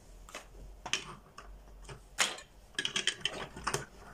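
Plastic Duplo bricks clicking and clattering as they are handled and picked through in a loose pile, with a sharper clack about two seconds in and a quick run of clicks near the end.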